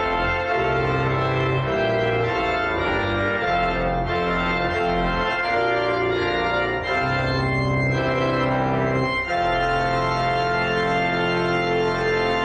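Church organ playing slow, held chords that change every second or so.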